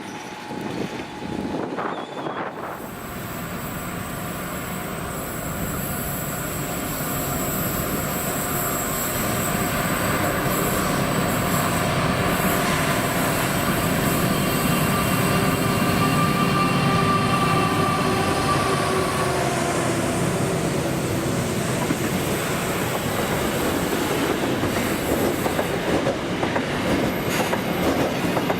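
Freight train running through, wagon wheels rumbling on the rails with thin high-pitched wheel squeal; it starts about two seconds in and builds steadily louder as the train comes close.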